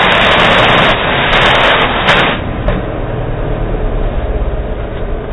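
Car exhaust rushing loudly out of the tailpipes as the engine is revved, then dropping sharply back to a low steady idle about two seconds in. The party noise-makers on the pipes add no sound of their own.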